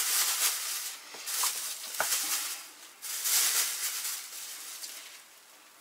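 Plastic bag crinkling and rustling in about three bursts as pieces of salted pork fat are packed into it, with a single sharp click about two seconds in.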